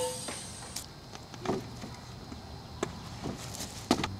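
Faint, scattered knocks and scuffs of handling, about half a dozen at irregular times. Near the end a wire-stemmed sprinkler marking flag is being pulled out of an OSB board, with a slightly louder knock just before the end. The pneumatic cannon's previous shot is still dying away at the very start.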